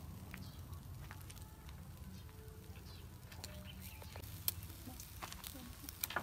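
Metal tongs clicking and scraping on a wire grill rack as chicken feet are turned over charcoal, with light sizzling. The sharpest click comes about four and a half seconds in, and a few more come near the end.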